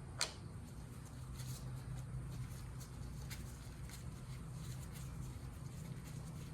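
Small clicks and taps of a Phillips screwdriver loosening the two little cover screws on a motorcycle's front brake fluid reservoir. There is one sharp click just after the start, then scattered faint ticks over a steady low hum.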